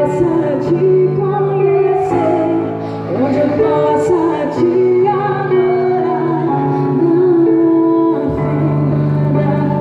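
Live worship band playing a contemporary Christian song, with a singer's voice carrying the melody over sustained instrumental chords.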